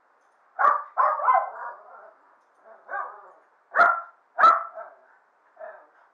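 Dogs barking in short, sharp bursts, about six barks, from dogs excited as their owner gets ready to take them out. The sound is thin and muffled, as from a poor microphone.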